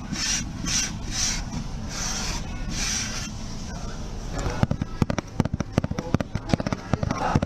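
ASMR trigger sounds: about five soft rubbing or brushing strokes in the first three seconds, then rapid light tapping clicks from about four and a half seconds in.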